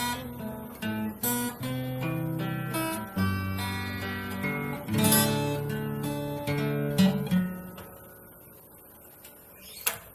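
Yamaha FX315 acoustic guitar played: picked notes and chords with a few strums. The last chord rings out and fades at about eight seconds, and a short sharp click comes near the end.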